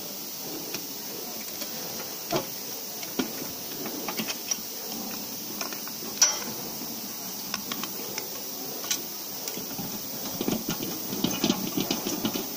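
Handling noise of aluminium foil being stuck and pressed onto an ultrasonic cleaner's metal tank inside its housing: scattered light taps and clicks, one sharper click about six seconds in, and a stretch of denser rustling near the end, over a steady faint hiss.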